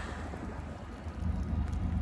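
Wind buffeting the microphone: a steady low rumble that gets a little louder about a second in, with no horn.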